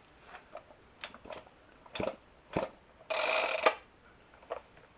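Scattered clicks and knocks of a Homelite XL chainsaw being handled just after a new spark plug has gone in, with a short, louder rasp about three seconds in.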